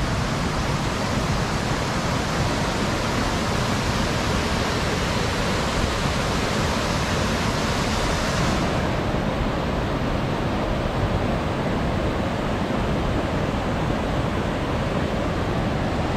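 Mountain stream rushing in cascades over boulders: a steady, loud rush of water that turns slightly duller about nine seconds in.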